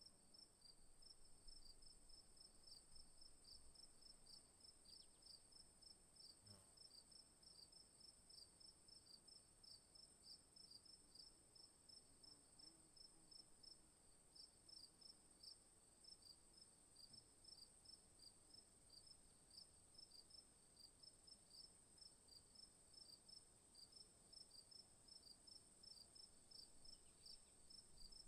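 Faint insect chorus, typical of crickets: one continuous high-pitched trill under a steady rhythm of short, rapid chirps, unchanging throughout.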